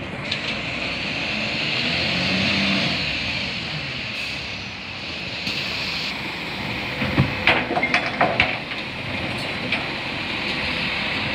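Automated side-loader garbage truck with its diesel engine running as it pulls up to the kerb. Partway through, its hydraulic arm grips and lifts a plastic wheelie bin, giving a burst of sharp clattering knocks.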